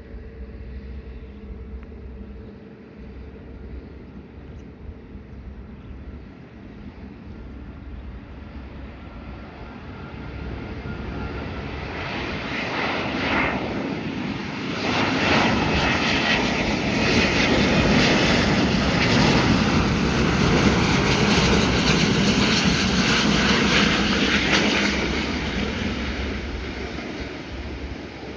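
Twin-engine jet airliner passing close by: the engine roar builds over several seconds, stays loud and full for about ten seconds, then fades away near the end.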